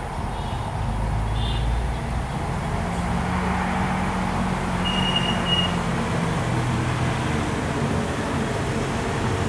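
Diesel locomotive hauling a passenger train at speed toward the listener, its engine running under load. The sound grows louder over the first second or so, then holds steady.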